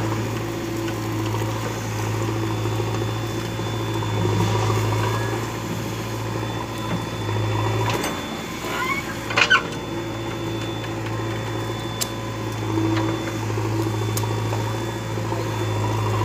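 JCB 3DX backhoe loader's diesel engine running steadily as it works the digging arm, with a couple of sharp knocks, the loudest a double knock about nine seconds in and another near twelve seconds.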